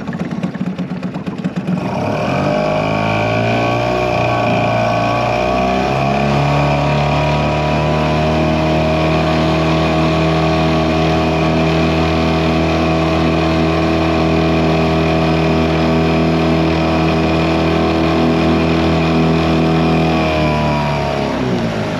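A 2001 Yamaha 5 hp two-stroke outboard motor in gear, throttled up from idle about two seconds in and rising again a few seconds later. It then runs steadily at speed, pushing the boat, and is throttled back down near the end. The engine is running well now that its fuel starvation from a bad fuel filter is cured.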